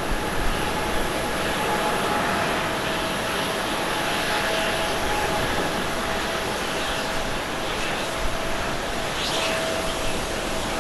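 Boeing 777-300ER's two GE90-115B turbofan engines at takeoff thrust during the takeoff roll: a steady jet noise with a thin held tone running through it.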